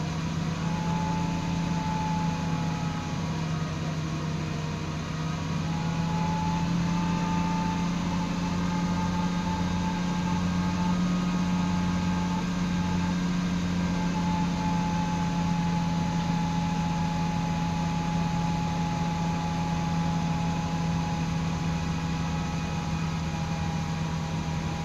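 Steady high-pitched whistle from a new Miles driveshaft carrier (center support) bearing under a car on the move, over the steady drone of the drivetrain and road; the whistle wavers and breaks up for a few seconds midway.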